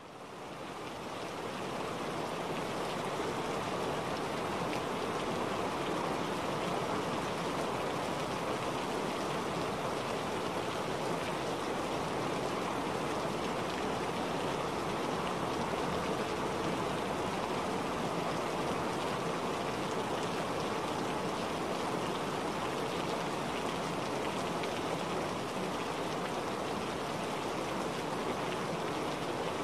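Steady rushing water noise, like heavy rain, fading in over the first two seconds and then holding even: the calming masking track of a subliminal recording.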